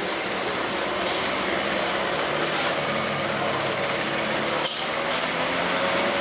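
DAF heavy truck engine running steadily, with three short bursts of air hiss about one, two and a half, and four and a half seconds in.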